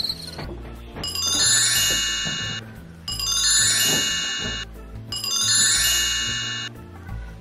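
A sparkly magic-chime sound effect, a cascade of high bell-like tinkles, plays three times, each time for about a second and a half, over background music with low bass notes.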